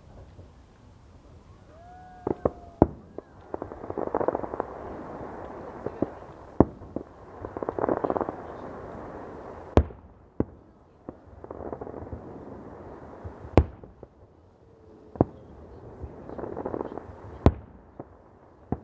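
Fireworks going off: loud single bangs every few seconds, with swells of crackling between them.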